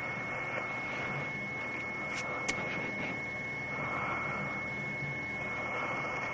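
Steady background hiss with a constant high-pitched whine, and two faint clicks a little over two seconds in.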